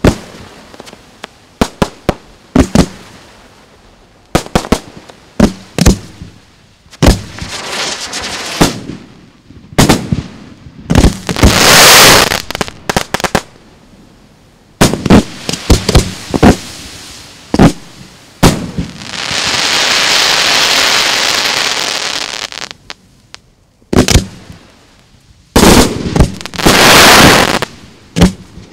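Professional fireworks display: a rapid, irregular run of sharp bangs from shells and cakes launching and bursting, broken by longer rushing washes of noise from effects breaking in the sky, the longest a smooth swell of about three seconds past the middle.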